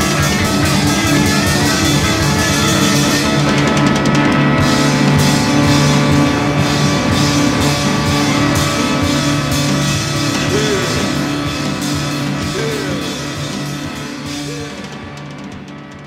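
Rock music with a drum kit and guitar, fading out over the last few seconds.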